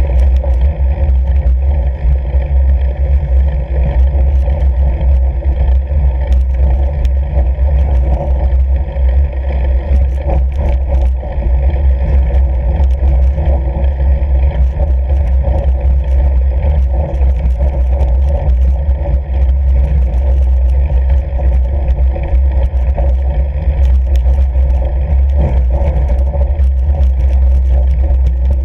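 Fat bike rolling across packed snow on lake ice: a loud, steady low rumble of wind on the microphone over the hum of the wide tyres, with scattered clicks and rattles from the bike.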